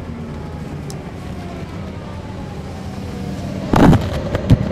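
Inside a NABI 40-foot transit bus, its Caterpillar C13 inline-six diesel drones with the engine note falling slowly in pitch. Near the end a loud sharp noise cuts in, followed by two smaller knocks.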